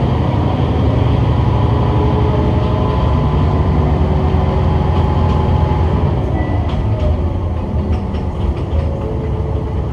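Kishu Railway diesel railcar under way, heard from inside the car: a steady engine drone, with the wheels clicking faintly over rail joints in the second half. The engine sound eases slightly near the end.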